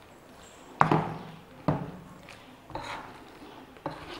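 A spoon stirring steamed baby jackfruit pieces into thick gram-flour batter in a steel bowl: four sharp strokes about a second apart, each fading quickly.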